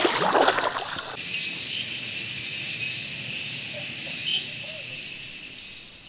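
Pool water splashing and sloshing, which stops abruptly about a second in. A steady high-pitched insect chorus follows, with a few faint short calls, fading out near the end.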